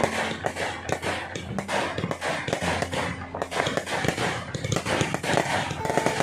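Fireworks crackling: a fast, dense run of small pops and cracks with no break.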